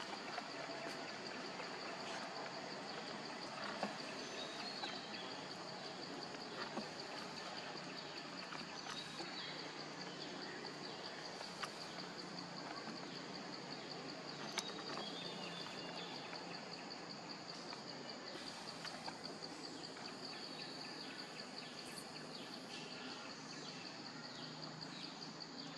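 Forest ambience: a steady, high-pitched insect drone over an even background hiss, with a few faint clicks and short bird chirps here and there.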